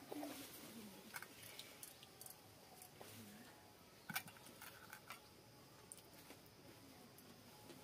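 Sparse, faint clicks and taps of hands and bangles against stainless steel bowls as two people eat rice by hand, with the sharpest click about four seconds in.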